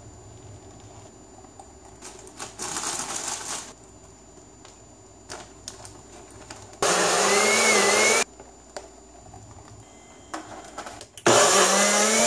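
NutriBullet personal blender running in two short bursts, one about seven seconds in and one near the end, each a loud steady motor whine, blending a spinach-and-fruit smoothie. A shorter, quieter burst of noise comes about two and a half seconds in.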